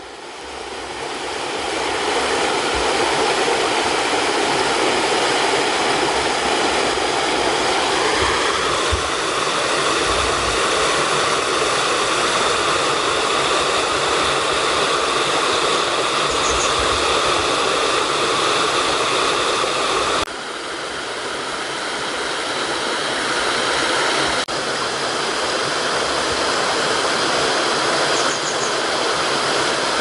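Water of a clear mountain stream rushing steadily over a small cascade of rock ledges. The rush becomes fuller about eight seconds in, and breaks off abruptly twice, about twenty seconds in and again a few seconds later.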